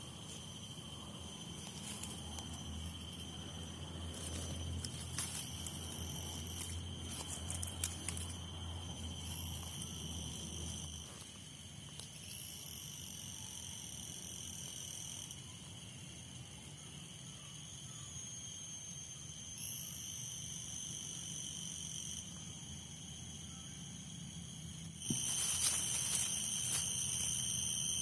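Insects calling: a steady high shrill tone throughout, with a louder, higher shrill that switches on and off in bouts of a few seconds and is loudest near the end. A few faint clicks and rustles sound in the first third.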